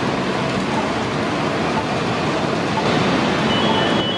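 Parked fire apparatus running, with a steady engine rumble and street noise. A high electronic beeping starts near the end.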